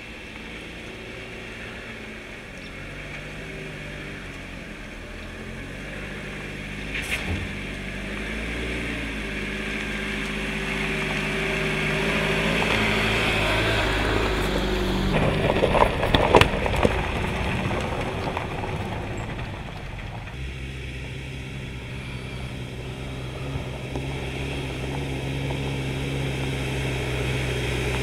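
Jeep Renegade's engine running at low speed as it crawls over a rough dirt trail, growing louder overall, with a few sharp knocks and crackles about halfway through.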